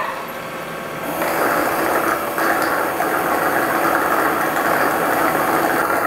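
Tama All-in-One AI robot vacuum station washing the robot's mop pads: a steady mechanical running noise that gets louder about a second in and then holds even.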